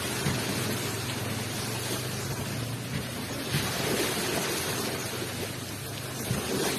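Ocean waves rushing onto the shore: a steady hiss of surf, swelling briefly a little past halfway.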